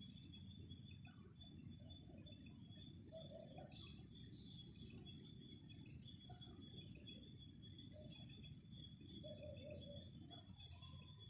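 Faint night ambience: crickets and other insects chirring in a steady high drone, with short calls coming and going over it and a low rumble of background noise underneath.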